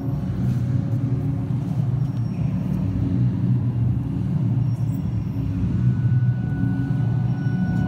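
Ambient soundtrack music built on a steady low rumbling drone. A thin high held tone comes in about six seconds in.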